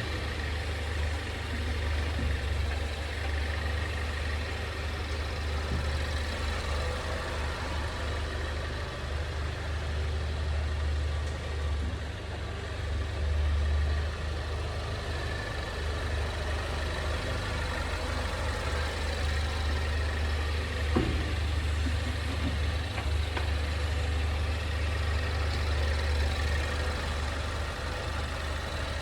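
Steady low drone inside a 2020 Ford Mondeo wagon's cabin, with one sharp knock from the underbody about 21 seconds in. The knock is the abnormal chassis noise the owner reports on the car a month after delivery.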